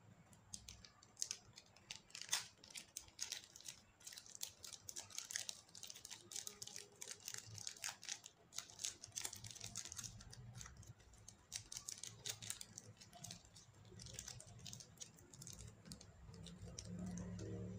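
Thin clear plastic wrapper crinkling and crackling in quick, irregular bursts as it is peeled off a soft pink slime. Near the end it gives way to softer, duller handling sounds.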